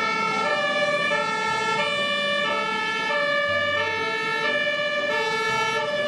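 A siren-like set of steady electronic tones, several pitches sounding together and stepping up and down about every half second, with a deep low note sounding now and then.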